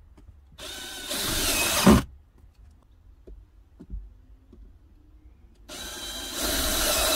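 Cordless drill-driver run in two bursts of about a second and a half each, driving screws into the wall panel. Each burst grows louder as it goes, and the first ends in a sharp knock.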